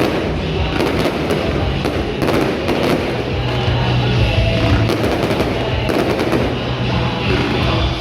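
Fireworks going off in a rapid, continuous string of bangs and crackles, with no break.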